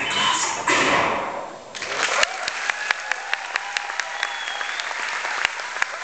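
Dance music cuts out about a second and a half in, and an audience in a hall then applauds, with individual claps standing out.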